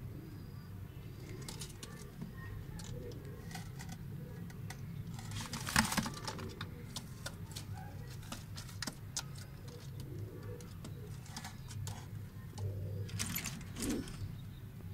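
Ferozpuri pigeons cooing in a coop, a low steady murmur, with scattered short clicks and two louder rustling bursts, one about six seconds in and one near the end.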